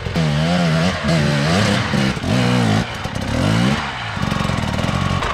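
Dirt bike engine revving up and down in about five short bursts under load as the bike climbs a steep, rough hill, then running more steadily near the end.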